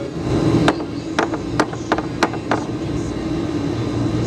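Split-type air conditioner outdoor unit humming steadily, with about seven sharp clicks and taps in the first two and a half seconds as the unit is worked on.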